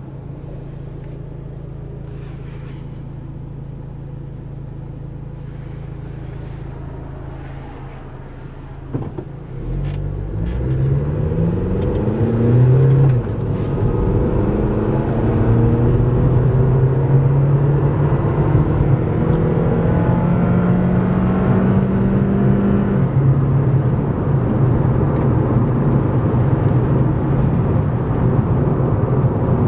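Car engine heard from inside the cabin, idling steadily, then pulling away about nine seconds in. Its pitch rises, drops at a gear change, climbs slowly again and drops at a second change, as tyre and road noise build up and settle into a steady cruise.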